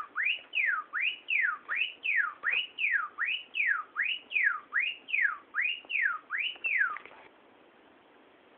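Cockatiel whistling a rapid, evenly repeated rising-and-falling siren, about two and a half whoops a second, mimicking a car alarm. It stops abruptly about seven seconds in.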